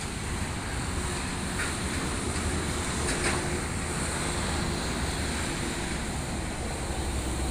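Steady outdoor background noise of light road traffic, an even din with no distinct events.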